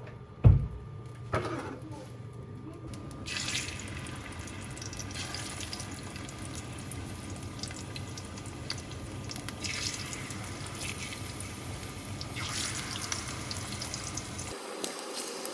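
A sharp knock, then a second one, followed about three seconds in by ripe plantain slices frying in hot oil: a steady sizzle with scattered crackles.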